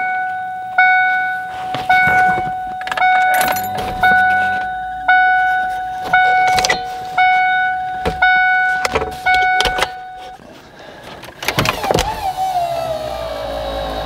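A car's warning chime repeats about once a second for roughly ten seconds, mixed with clicks and knocks, then stops. About a second and a half later the 1993 Mustang convertible's power top motor starts with a whine that drops in pitch and then runs steadily.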